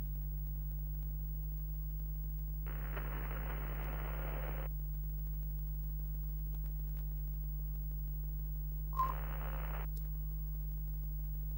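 Steady low electrical mains hum, like an old television set, with two bursts of static hiss: one about three seconds in lasting two seconds, and a shorter one near nine seconds that opens with a sharp click.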